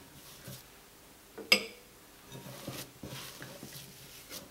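Hands pressing mashed potato dough flat in a glass mixing bowl: soft, dull thumps, with one sharp clink on the glass bowl about a second and a half in.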